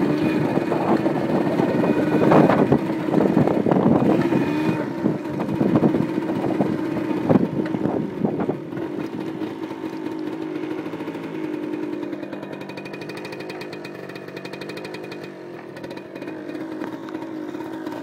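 Suzuki LT80 quad's small two-stroke single-cylinder engine running steadily while it is ridden, with knocks and rattles from the quad over the first eight seconds or so. It then settles into a quieter, smoother run.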